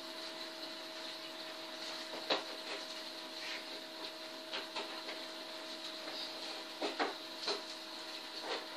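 Folded paper pieces of a 3D origami model rustling and clicking as they are pressed onto one another, with a sharp tick about two seconds in and a few more around seven seconds, over a steady background hum and hiss.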